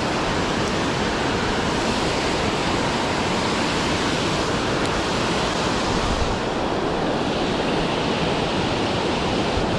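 Water pouring over a concrete dam spillway into the pool below: a steady, unbroken rushing noise.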